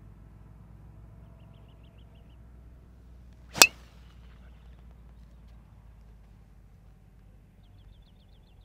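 Golf driver striking a teed-up ball on a full tee shot: one sharp crack about three and a half seconds in, followed by a brief ringing tone.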